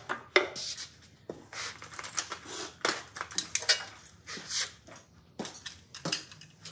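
Hand tools clinking, tapping and scraping on the metal of a flathead Ford V8 engine: a run of irregular short metallic clicks and clanks, the sharpest hit just after the start.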